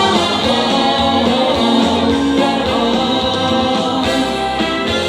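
Live band music, with a chorus of many voices singing over it.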